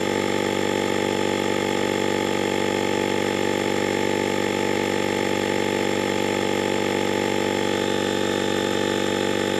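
GOOLOO cordless portable tire inflator's small electric air compressor running steadily under load, pumping up a pickup truck tire, with an even, unchanging hum of many tones.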